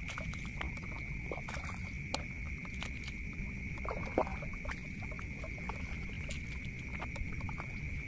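Footsteps rustling and crunching through rice-field grass and stubble, with scattered small clicks and snaps. Under them runs a steady high-pitched drone, and a short falling squeak comes about four seconds in.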